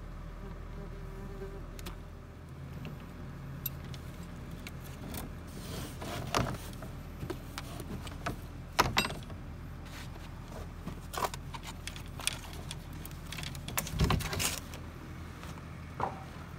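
Scattered knocks and clatters as a pipe-bursting pulling head, its cable and blue plastic water pipe are handled and fitted together, loudest about nine and fourteen seconds in, over a steady low hum.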